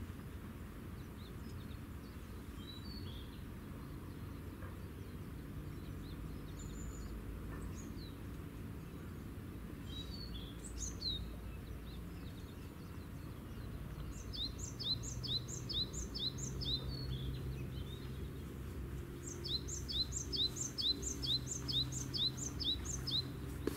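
A small songbird singing, scattered chirps and then two runs of quick, repeated high notes, the first about halfway through and the second near the end. Under it, a steady low rumble of ship engines out on the water.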